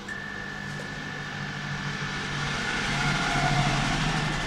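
A small motor runs with a steady high whine over a hiss of air, and the hiss and a low hum grow louder toward the middle.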